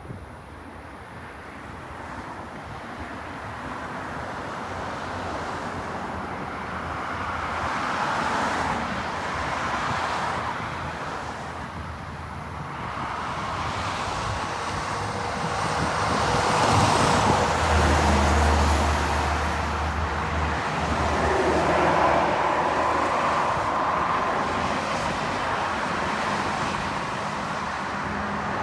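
Road traffic passing in several waves that grow louder, with a 2002 Blue Bird International 3800 school bus going by. Its engine rumble is strongest a little past the middle.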